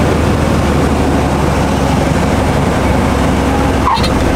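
Single-engine light aircraft's piston engine and propeller droning steadily, heard inside the cabin as the plane lands. A brief click and chirp about four seconds in.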